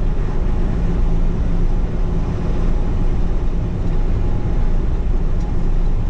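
Inside a semi-truck cab cruising on the highway: a steady drone of the diesel engine and road noise, with a constant low hum.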